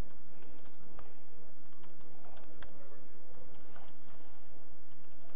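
Typing on a laptop keyboard: a quick, irregular run of key clicks over a steady low hum.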